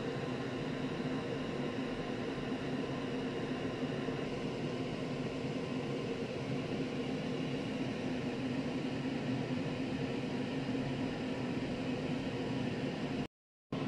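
A steady droning hum with hiss, holding the same pitch without change, that cuts out completely for a split second near the end.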